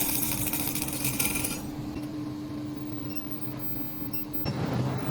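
Induction melting furnace running with a steady electrical hum that shifts to a lower, louder hum about four and a half seconds in, with a few faint short high pings.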